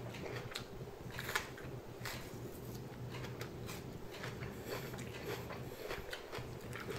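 Faint crunching and chewing of a thick-walled Shepherd's Ramshorn sweet pepper, with small wet crackles as its flesh is bitten and then pulled apart by hand; one sharper crunch about a second and a half in. A low steady room hum runs underneath.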